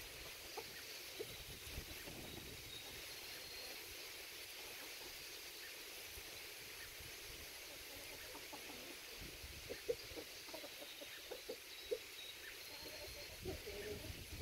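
Hens clucking softly in short single notes over a steady outdoor hiss, with the clucks coming more often in the second half.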